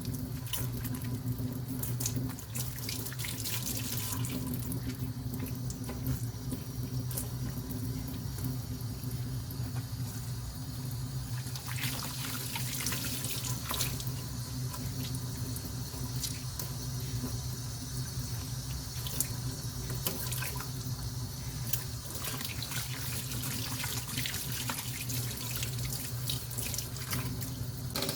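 Water running steadily from a tap into a sink, with scattered small clicks and splashes.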